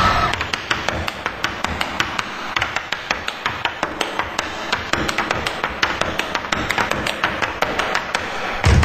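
Irish step dancers' hard shoes striking the stage floor in unison, a rapid, even run of sharp taps with little accompaniment. Loud, bass-heavy music comes back in just before the end.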